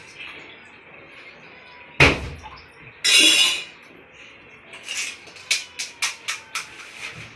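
Tableware noises during fast eating: a sharp knock about two seconds in, a short hissy burst a second later, then a quick run of clicks and clinks of plates and glasses.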